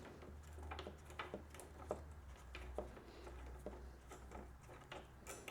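Faint, irregular small clicks of a hex key turning a mounting bolt as it is started into its thread, over a low steady hum.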